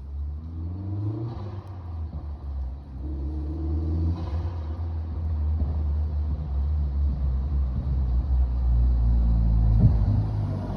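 MK4 Golf GTI's 1.8-litre turbocharged four-cylinder running through a 3-inch downpipe and custom catback, with a deep exhaust rumble. Its pitch rises twice in the first few seconds as the engine revs, and it grows louder toward the end.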